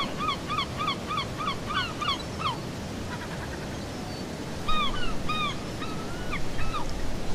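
A bird calling in a rapid run of short, arching notes, about three a second, over a steady background hiss. The calls stop for about two seconds partway through, then a few more follow.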